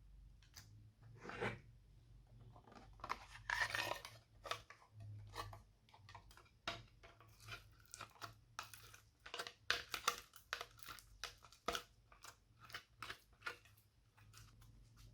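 Glossy slime being squished and stretched by hand, making irregular crunchy crackles and small pops in uneven clusters, busiest in the second half.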